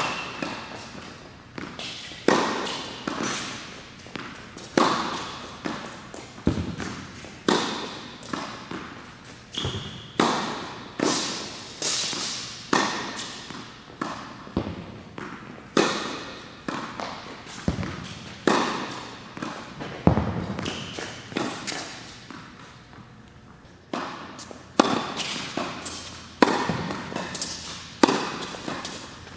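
Tennis ball being struck by a racket and bouncing on an indoor hard court, a steady rally of sharp hits about once a second, each ringing out in the hall's echo. The hits pause briefly about three-quarters of the way through, then resume.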